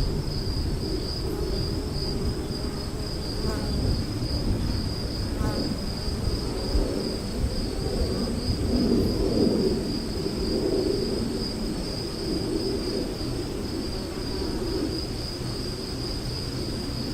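Afternoon storm ambience: a steady, rapidly pulsing high insect chorus, typical of crickets, over a low rumble of thunder that swells and fades.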